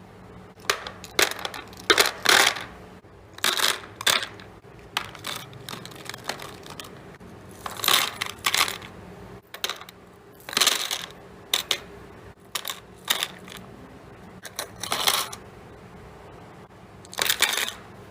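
Hard items being handled and set down while restocking, making about twenty short, irregular clinks and clatters with brief pauses between them.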